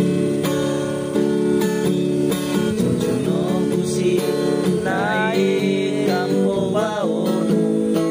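Background music led by strummed acoustic guitar, with a melody line that slides and bends in pitch.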